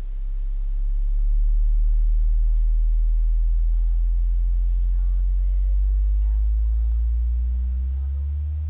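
Very low bass sine test tone from a portable smart speaker, its pitch slowly rising, with faint overtones above it.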